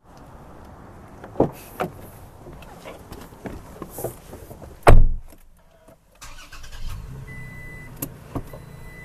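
A few clicks and rustles, then a car door shutting with a heavy thump about five seconds in. About a second later the Toyota Tacoma's 3.5-litre V6 starts and settles into a steady idle, with a high warning chime repeating over it.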